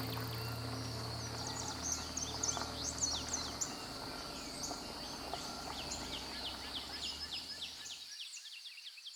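Forest birds chirping in many short, quick downward calls over a steady high-pitched hum, with the sound fading out near the end.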